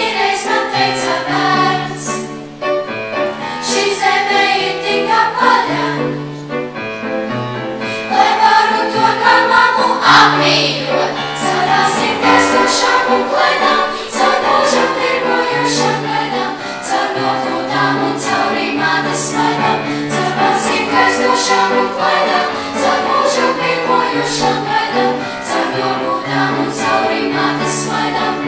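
Choir of girls singing in parts, accompanied on grand piano.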